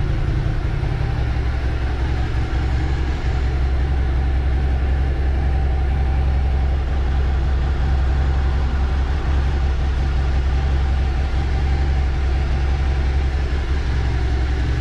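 2020 Suzuki SV650's 645 cc V-twin engine idling steadily, being run to warm the oil before an oil change.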